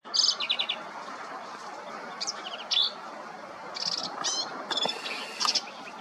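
Black-capped vireo singing: a series of short, varied phrases of rapid high notes, one every second or so, over a steady background hiss.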